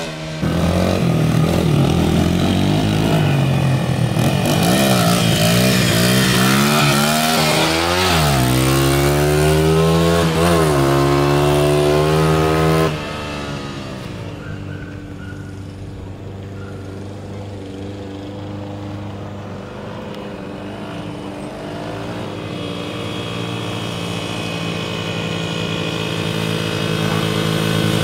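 Small dirt bike engine running hard, its pitch rising and falling as it revs up and shifts. About halfway through the sound drops off suddenly to a fainter engine that grows steadily louder as the bike approaches.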